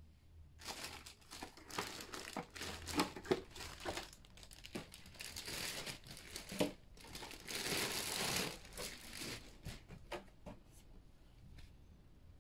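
Thin clear plastic bag crinkling and rustling as it is worked off an RC truck's body shell by hand, with a few sharp crackles. It is loudest about eight seconds in, then dies down to faint handling ticks near the end.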